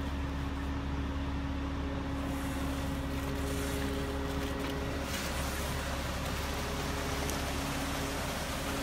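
Ready-mix concrete mixer truck's engine running steadily, a continuous hum with a low rumble and a few held tones, while its drum turns to discharge concrete down the chute.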